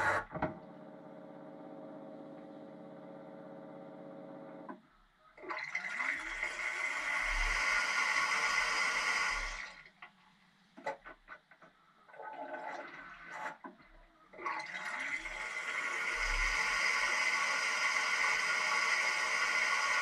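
Water spraying inside a Siemens dishwasher tub: the spray cuts off at the start and a steady pump hum runs for a few seconds. The spray then comes back, drops to scattered splashes and drips, and runs steadily again for the last part.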